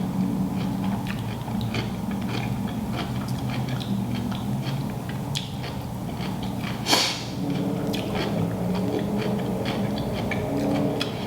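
Close-miked chewing and biting of seafood boil food, with many quick wet mouth clicks and smacks over a low steady hum. One louder sharp sound about seven seconds in.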